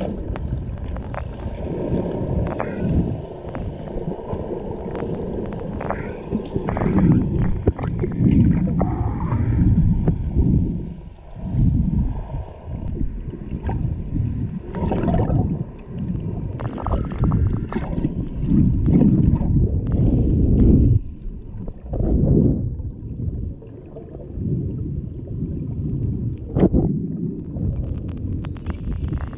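Muffled underwater sound from a camera held below the surface: water sloshing and rushing past, heard as a low, irregular rumble that swells and dips every second or two, with a few faint clicks.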